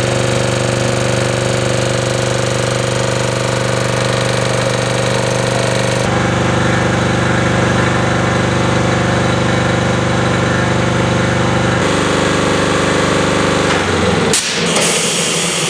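Tanabe H-64 reciprocating marine air compressor running with a steady, rapid knocking beat. Its sound shifts abruptly twice, and near the end the steady running gives way to a noisier rushing sound.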